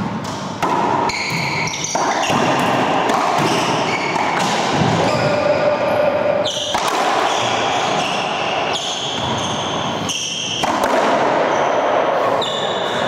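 Racquetball doubles rally: the ball cracks off racquets and the walls of the enclosed court again and again, with short high squeaks of shoes on the hardwood floor.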